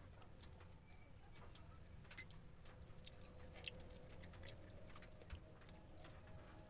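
Faint, sparse crunching clicks of someone eating crispy-fried chicken bones by hand.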